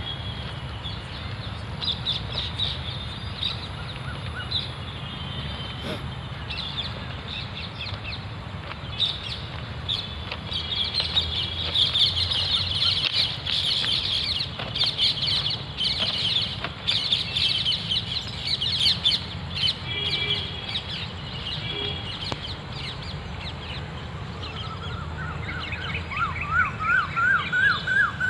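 Birds chirping and twittering in quick high notes, busiest in the middle. Near the end, another bird gives a run of about eight short calls that climb in pitch.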